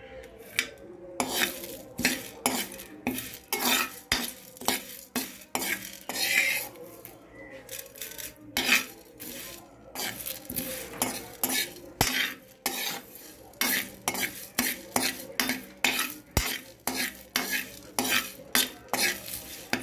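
Steel ladle stirring and scraping whole spices (coriander seeds, curry leaves and bay leaves) around a metal pan, a steady run of scrapes and clinks about two a second.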